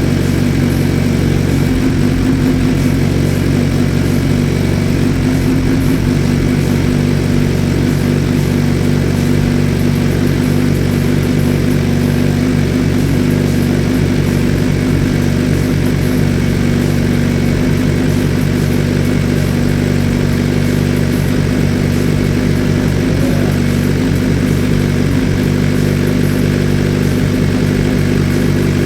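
2018 Suzuki GSX-R1000R inline-four engine idling steadily on its first start after a Woolich Racing ECU tune. It is running to warm up until the thermostat opens, so the coolant circulates and air is pushed out of the newly installed radiator.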